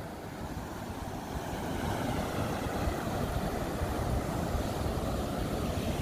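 Steady rush of river water at the brink of a waterfall, surging around a clump of reeds as it pours over the cliff, growing a little louder about a second and a half in.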